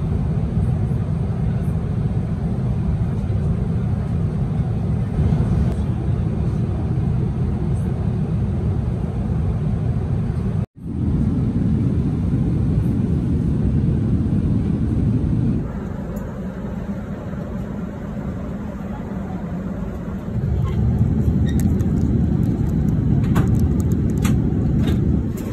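Steady low rumble of an Airbus A380's cabin noise in flight. It cuts out for an instant about ten seconds in and turns quieter for a few seconds in the middle. A few light clicks come near the end.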